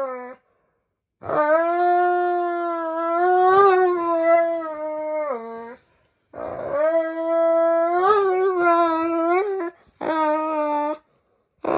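Doberman pinscher howling in protest while its nails are clipped: long, steady wails, each held for up to about four seconds, broken by short pauses for breath. It is exaggerated fussing, not real pain, since the nails are being cut only in tiny bits.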